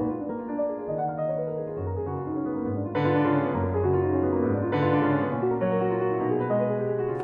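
Slow piano music of held chords and single notes, with two brighter struck chords about three and five seconds in.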